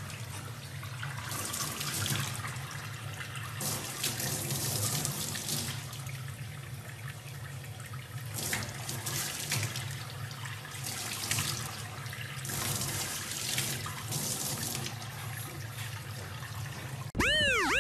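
Tap water running steadily into a stainless steel sink and splashing over a baby chimpanzee, with surges of splashing as it moves under the stream. Near the end the sound cuts suddenly to a repeated warbling tone.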